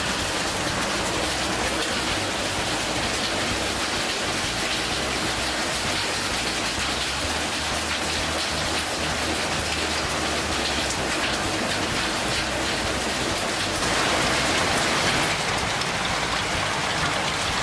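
Steady heavy downpour pattering on surfaces, growing heavier about fourteen seconds in.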